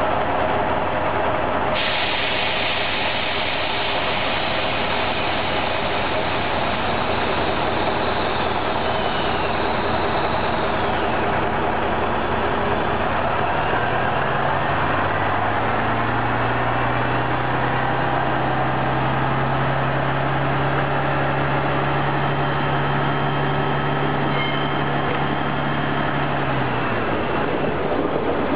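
Engine of an old Brossel catenary-maintenance railcar idling at a standstill, heard from beside its bogie. About two seconds in, a steady hiss joins. Past the middle, a low hum rises in steps and holds steady, then drops away near the end as the railcar begins to roll.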